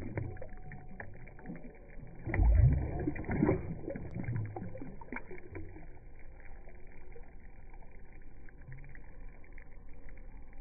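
Water splashing and sloshing as a released bass kicks free of the hand and swims off, loudest about two and a half seconds in, then faint lapping.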